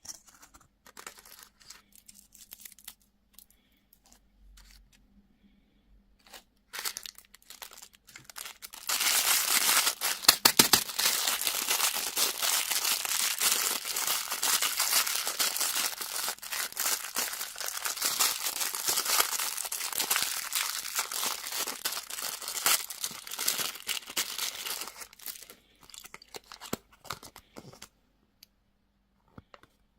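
Candy wrapper being crinkled and torn open: a few faint clicks and rustles, then about nine seconds in a long stretch of loud, dense crackling and tearing that dies away after about a quarter of a minute.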